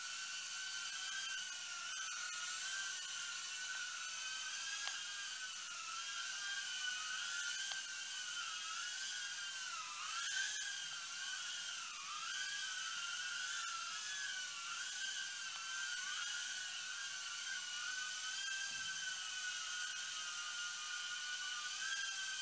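FuryBee F36 mini quadcopter's four tiny coreless motors and propellers whining at a high pitch as it flies, the pitch wavering up and down as the throttle and direction change.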